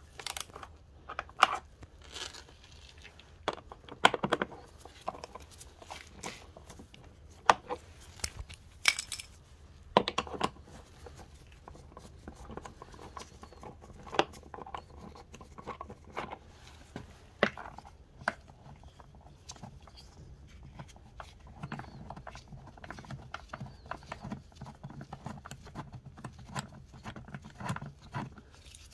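Socket wrench and bolts being worked on a scooter's plastic body panel: a string of separate metallic clicks and clinks, then, about two-thirds of the way in, a run of fast ratchet clicking as fasteners are undone.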